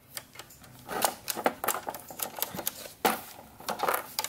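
Small plastic body-part pieces set into the recesses of a plastic doctor operation game board, making irregular light clicks and taps, with a louder knock about three seconds in.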